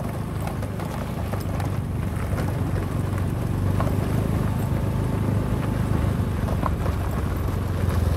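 A small motorbike engine running steadily as it rides over a rough dirt road, with wind on the microphone and a few light knocks from the bumps.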